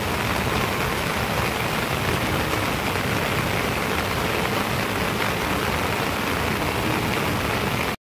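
Heavy rain falling steadily, a dense, even hiss with no let-up.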